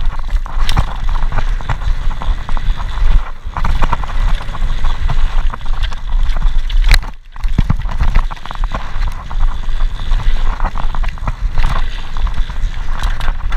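Mountain bike ridden fast down a dirt singletrack: a steady rumble of tyres on the trail with constant rattling and clicking of the bike over bumps, and wind buffeting the microphone. It drops away briefly about seven seconds in.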